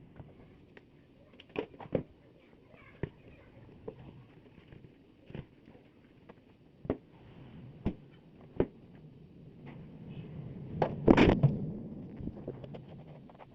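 Scattered sharp knocks and clicks, one every second or so, with a louder clattering burst lasting about a second near the end.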